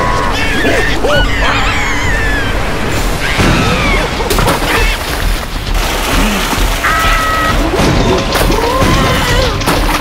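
Cartoon soundtrack of a large wave surging and crashing over a small floating can, with the larva characters' high squealing cries over music.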